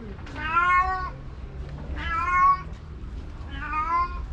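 A stray cat meowing three times, long drawn-out meows about a second and a half apart.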